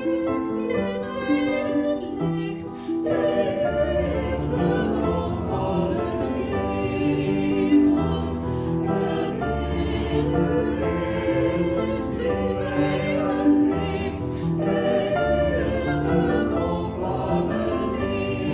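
Music: a choir singing in sustained notes over instrumental accompaniment, with a deep bass line coming in about four seconds in.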